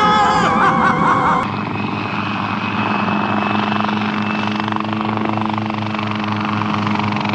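Dramatic music cuts off abruptly about a second and a half in, replaced by a helicopter's steady engine and rotor drone with a faint regular pulse.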